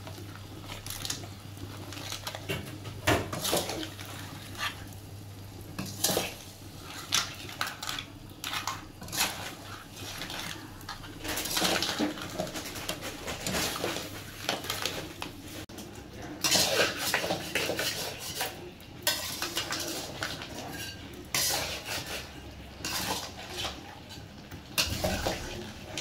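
Steel ladle scraping and clanking against a wok as whole crabs are stirred through a thick masala, with the crab shells knocking against the pan. The clatters come irregularly, in clusters, over a faint low hum.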